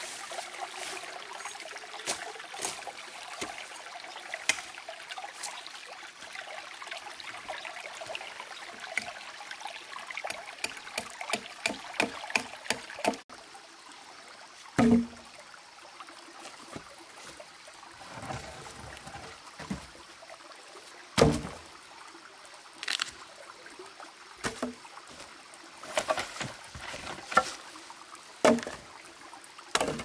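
Water trickling, with many scattered clicks and knocks. About thirteen seconds in the background drops abruptly and the rest holds sparser knocks and a few dull thumps.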